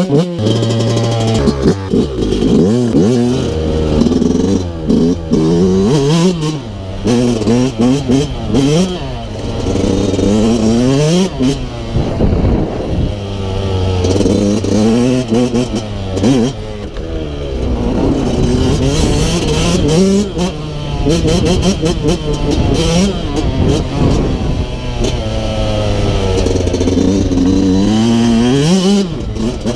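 Yamaha YZ125 two-stroke single-cylinder dirt bike engine heard from on board while it is ridden, repeatedly revving up and dropping back as the rider works the throttle and shifts.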